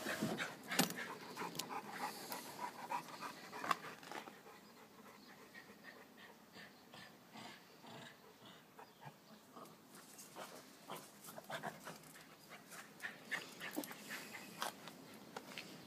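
Panting breath close by, with irregular sharp clicks and knocks that are loudest in the first few seconds and again near the end.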